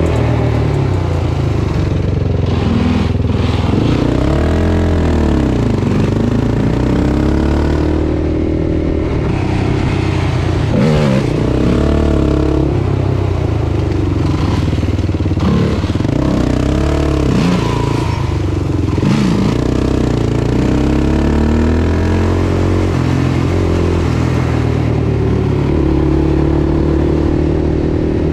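Sport quad engines revving up and down in repeated rising and falling sweeps over a steady engine drone, as a Yamaha YFZ450R's single-cylinder engine is throttled to hold a wheelie alongside the camera quad.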